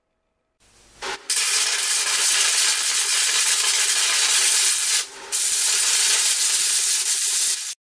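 A loud, steady hiss that starts about a second in, drops out briefly about five seconds in, and cuts off abruptly near the end.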